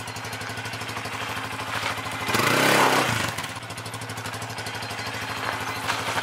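Loncin SX2's 230 cc air-cooled single-cylinder engine idling steadily, with a quick throttle blip about two and a half seconds in that rises and falls back to idle. The engine has just been reassembled after a burnt-clutch repair.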